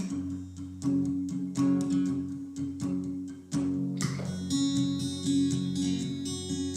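Acoustic guitar playing an instrumental passage, strummed chords in a steady rhythm.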